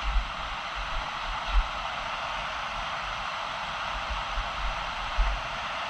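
Steady rushing roar of a waterfall, with a few low thumps of wind buffeting the microphone.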